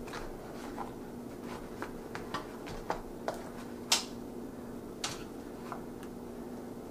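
A metal fork pricking and scraping the crisp skin of a baked potato and working into the flesh, heard as soft scattered clicks and taps. The two loudest taps come about four and five seconds in. A steady low hum runs underneath.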